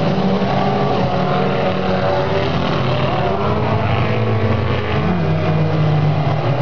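Several stock-car engines running together at racing speed, a loud steady drone of overlapping engine notes, one of them dipping and rising in pitch about five seconds in.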